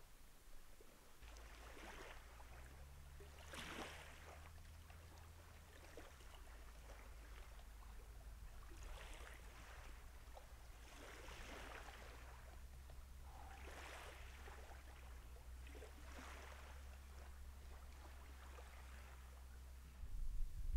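Small waves of Lake Baikal lapping on the shore: a soft wash rising and falling every two to three seconds, over a low steady rumble.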